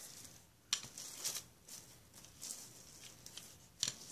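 Plastic wrap crinkling and rustling as a hand brayer is rolled over it, pressing it into wet paint on paper, with sharper crackles about a second in and near the end.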